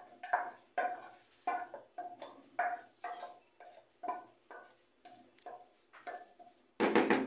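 Utensil knocking against a mixing bowl, roughly two uneven knocks a second, each with a short ringing tone, while the beaten egg yolks go into the whipped egg whites; a louder clatter comes near the end.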